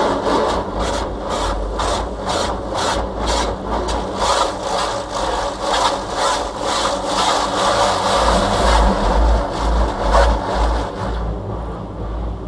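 Touchless car wash spraying the car with high-pressure water jets, the spray pulsing about three times a second as the jets sweep across, over a steady low rumble from the machine.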